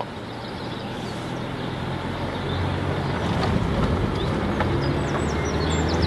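Opel Cascada's 1.6-litre four-cylinder petrol engine pulling the car along the road, heard from inside the open-top cabin with wind and road noise, gradually getting louder.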